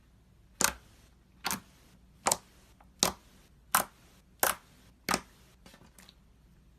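Slime being squeezed and worked, giving seven short, sharp pops about one every 0.7 s.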